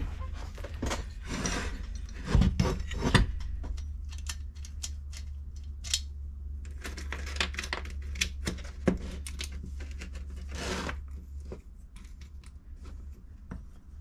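Small metal chainsaw parts (the McCulloch 1-10's clutch drum, sprocket, bearing and washers) clinking and knocking as they are handled on a workbench, with two louder knocks about two and a half and three seconds in. A low steady hum runs underneath and stops near the end.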